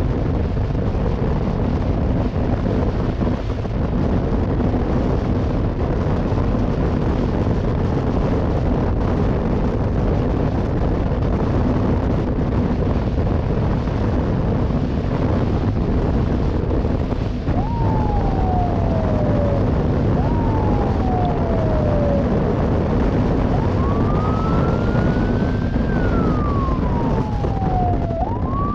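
Steady rush of wind and engine noise from a police escort motorcycle on the move. About two-thirds of the way in, its siren starts: two short falling sweeps, then a longer rise and fall, rising again near the end.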